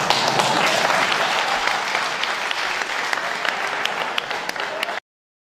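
Audience in a hall applauding, a dense patter of many hands clapping that cuts off abruptly about five seconds in.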